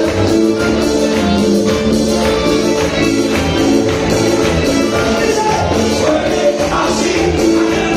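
Live Latin band music played loud and steady: accordion chords over electric guitars and a regular percussion beat.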